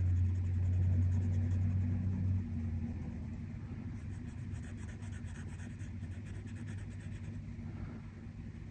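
Felt-tip marker scratching on paper in short repeated strokes as a letter is colored in solid. A steady low hum lies underneath and drops in level about two and a half seconds in.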